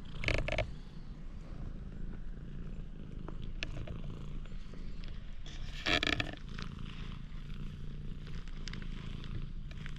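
A cat purring steadily while it is stroked, right beside the microphone. There are two brief louder sounds, one just after the start and one about six seconds in.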